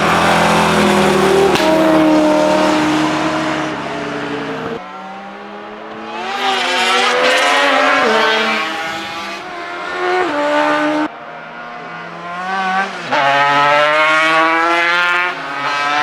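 Racing sidecar outfits' engines running at high revs as they race past, the pitch climbing under acceleration and dropping at each gear change or as they go by. The sound changes abruptly about five and eleven seconds in.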